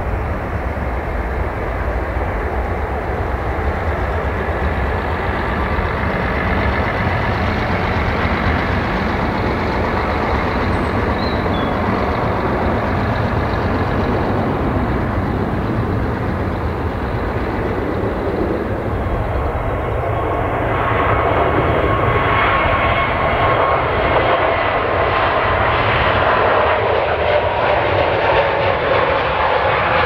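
Twin-engine Airbus jet airliner at takeoff power, a loud steady rumble that carries on as it climbs away. From about two-thirds of the way in, a second airliner's engines take over with a whining tone that slowly falls in pitch as it rolls along the runway.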